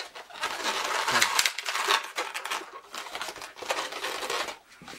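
Inflated 260 latex twisting balloons rubbing and crinkling against each other and against the hands as a balloon car is handled and turned over, in irregular scratchy strokes.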